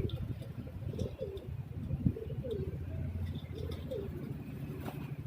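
Domestic pigeons cooing, with short, bending coos coming about once a second from several birds, over a low steady hum.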